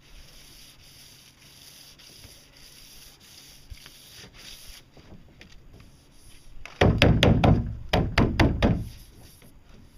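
Hand sanding a fiberglass boat hull. Soft rubbing gives way, about seven seconds in, to a run of quick, loud back-and-forth strokes, about four or five a second, lasting about two seconds.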